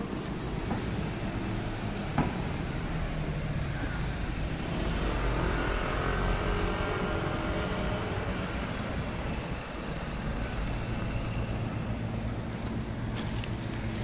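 City street traffic: engines of passing cars, a motorcycle and a double-decker bus with tyre noise, a steady hum that swells a little around the middle. One brief sharp tap about two seconds in.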